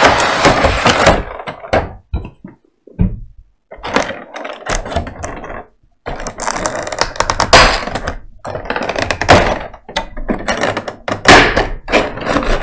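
A small cardboard game box being opened and its contents handled by hand: irregular bursts of rustling and scraping with sharp knocks and thunks, pausing briefly about two seconds in and again about six seconds in.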